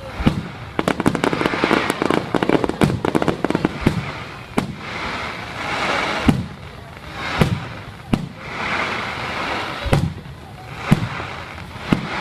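Aerial fireworks display: a dense run of rapid crackling in the first few seconds, then separate shell bursts booming about once a second.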